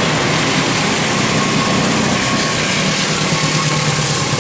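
An engine idling steadily with a low, even hum, over a constant hiss of surrounding noise.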